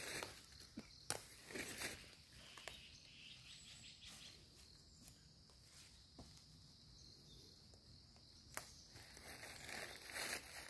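Footsteps crunching and rustling through dry fallen leaves, busiest in the first two seconds and again near the end, with a steady high insect drone underneath.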